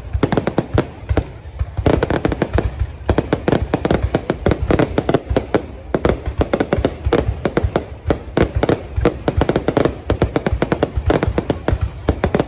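Fireworks display: a continuous barrage of sharp bangs and crackles, many per second, with hardly a gap.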